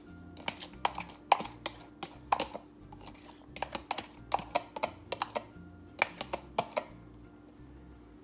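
Quick, irregular taps and clicks of kitchen utensils against a cutting board and dishes while the chopped onion is handled, with faint background music beneath. The taps thin out and stop about seven seconds in.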